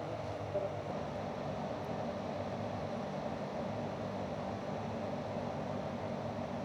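Charcoal forge fire burning with a steady rushing noise and a faint steady hum underneath.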